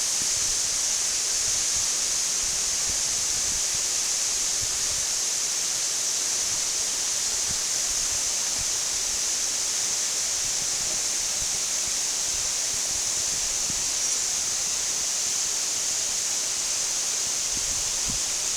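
Waterfall: falling water making a steady, even rush with a bright hiss.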